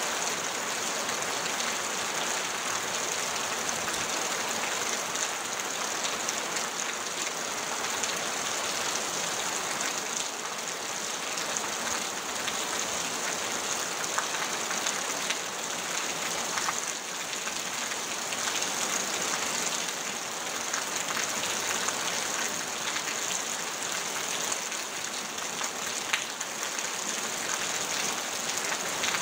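Steady heavy rain on a tin roof, with runoff pouring from the roof edge and a few sharper drop taps here and there.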